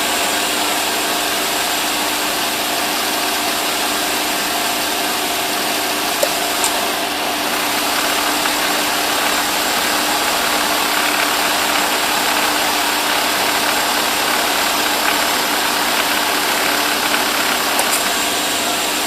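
Mercedes-Benz W124 engine idling steadily while its AC compressor clutch cycles on and off, with a sharp click about six seconds in and another near the end. The compressor will not stay engaged for more than about five seconds, a fault the owner traces to the AC pressure switch.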